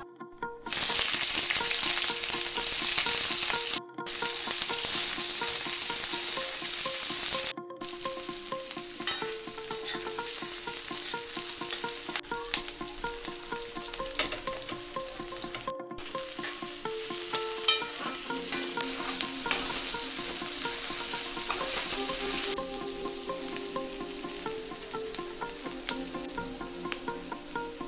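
Food frying in hot oil in a pan and being stirred, a dense sizzle that is loudest for the first seven seconds, broken by a few abrupt cuts, then continues more quietly.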